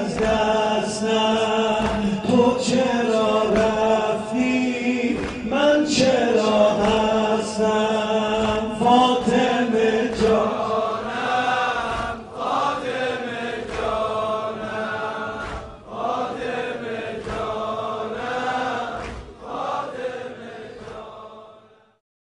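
A man chanting a Persian mourning elegy into a microphone in long, wavering held notes. It fades out near the end.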